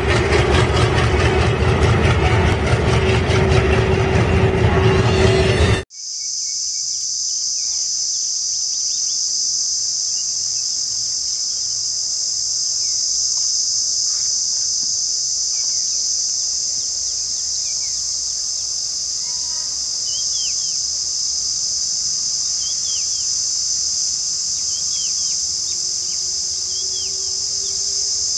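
A diesel locomotive passing close by with its engine loud and a steady low rumble, cut off abruptly about six seconds in. Then a steady high-pitched drone of insects, with short bird chirps in the second half and a faint rising hum near the end as a distant locomotive approaches.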